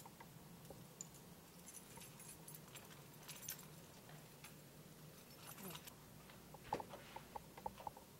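Near silence: room tone, with a faint jingling rustle now and then and a quick run of soft short clicks near the end.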